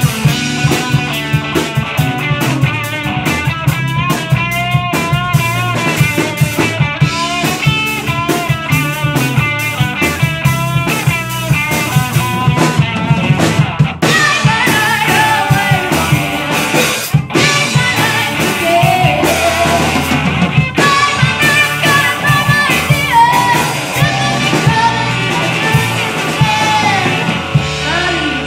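Live rock band playing: electric guitars over a drum kit, with a female lead vocal coming in about halfway through.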